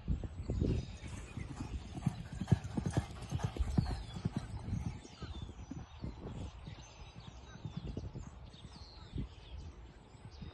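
Hoofbeats of a ridden racehorse galloping on a dirt training track at a two-minute-lick training pace. Loudest in the first half, fading after about five seconds.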